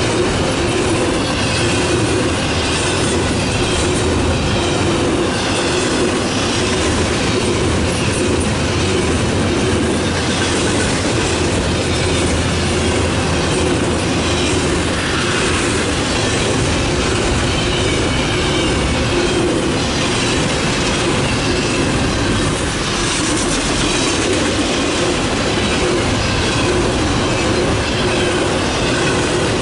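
Double-stack intermodal container train passing at close range: the steady rumble and rattle of its well cars' wheels on the rails, with a faint high wheel squeal coming and going.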